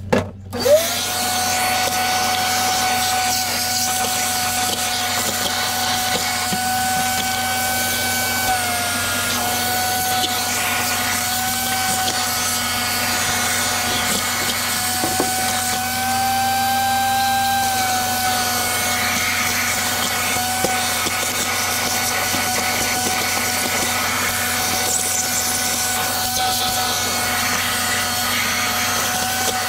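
Vacuum cleaner switched on about half a second in, then running steadily with a high motor whine while it sucks up loose rust flakes from a rusted-out generator drip pan; the whine dips and rises slightly a few times.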